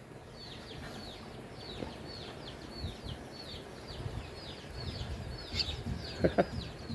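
Young birds peeping: a steady string of short, high calls that each fall in pitch, about three a second. A brief louder sound comes near the end.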